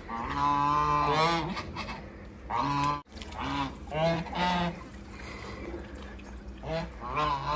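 Domestic geese honking: a string of loud nasal calls from several birds, in bouts with short pauses between them. The sound drops out for an instant about three seconds in.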